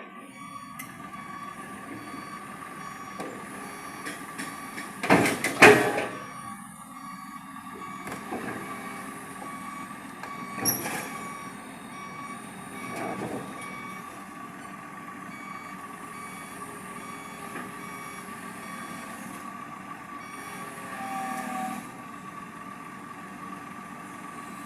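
Excavator running with its travel alarm beeping in an even, repeating pattern throughout. There are two loud metal clanks about five to six seconds in, and smaller knocks later.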